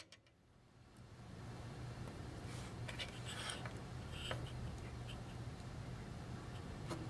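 Faint scratching and small clicks of tools working at a solder joint, over a steady low hum, while trying to free a stuck wire end from a hole.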